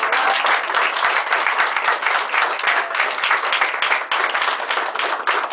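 A small audience applauding: many hands clapping in a dense, steady patter.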